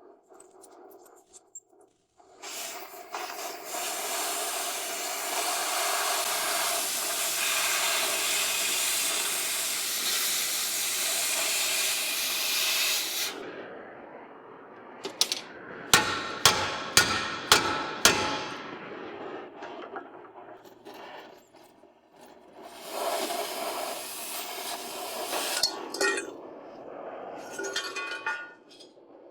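Metal fabrication work: a steady hiss for about ten seconds, then about six sharp hammer strikes in quick succession, then another shorter stretch of hissing near the end.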